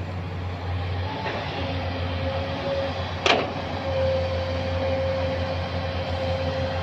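Hydraulic excavator's diesel engine running steadily with a steady whine as the machine swings and digs into loose rock. A single sharp clank comes about three seconds in.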